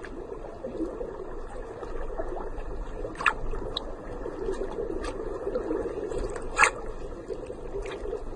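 Underwater ambience: a steady, dull wash of water sound with a few faint clicks, two sharper ones about three seconds and six and a half seconds in.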